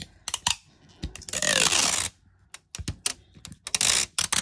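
Clear sticky tape pulled off the roll of a small plastic tape dispenser, two long rasps about a second in and again near the end, with scattered sharp clicks and taps in between.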